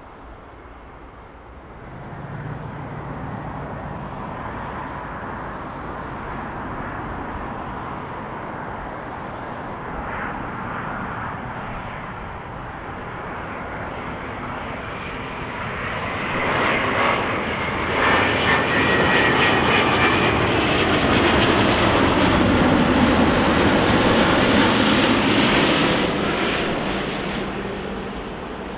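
Jet airliner coming in to land, its engine noise swelling from a distant rumble to a loud peak as it passes, then fading away near the end.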